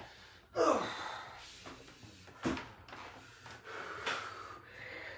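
A man breathing hard with forceful exhales and grunts while lifting dumbbells, the loudest about half a second in, and a sharp knock about two and a half seconds in.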